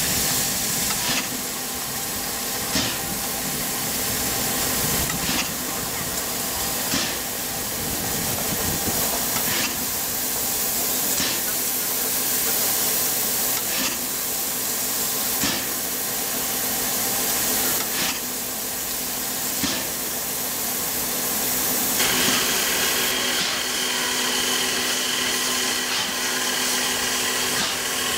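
Steam locomotive at a standstill, hissing steadily, with a soft knock about every two seconds. About three quarters of the way through, a steady whine joins the hiss.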